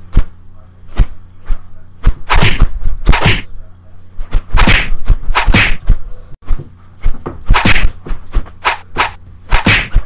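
Fight sound effects: a rapid series of punch and kick impacts with swishes, coming in clusters of two or three hits, over a faint steady low hum.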